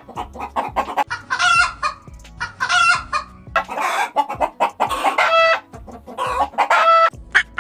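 Chickens clucking, with several drawn-out calls among quick short clucks.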